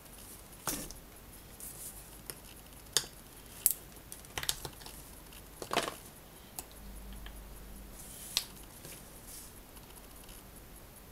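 A small metal Revell paint tin being handled and its press-fit lid prised off: scattered light clicks and taps of metal on metal and on the desk, about a dozen in all.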